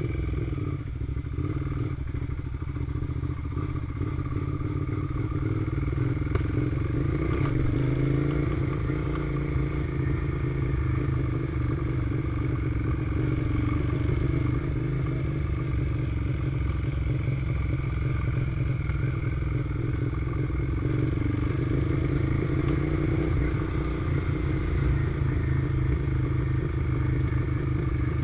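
A 2002 Suzuki SV650's V-twin engine runs steadily as the bike is ridden, its note rising slightly a couple of times.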